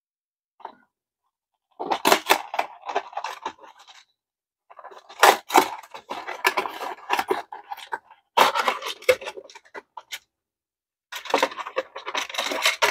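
Cardboard blind box being torn open by hand and its clear plastic clamshell handled: tearing, scraping and crinkling in four spells with short pauses between them.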